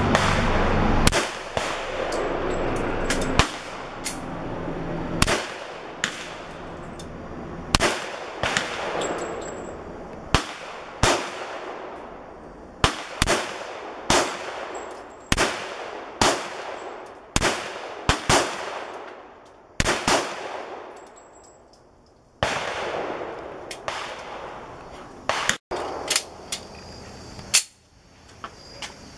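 Original Colt 1911 pistol in .45 ACP firing a long string of single shots, about one every one to two seconds with a few longer pauses. Each shot is a sharp crack with a short echo trailing off.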